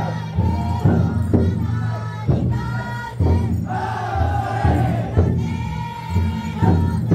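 Futon daiko festival float: a crowd of bearers chanting and shouting in unison, with heavy beats on the taiko drum carried inside the float.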